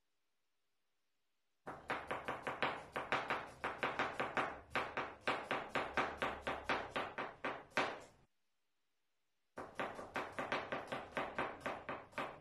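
Kitchen knife chopping a red onion on a cutting board: quick, even knocks of the blade on the board, about four a second, in two runs with a pause of about a second and a half between.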